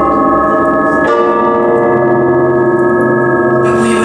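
Layered bell-like tones ringing on, with a new cluster struck about a second in, from live electronics. A hissing noise joins near the end.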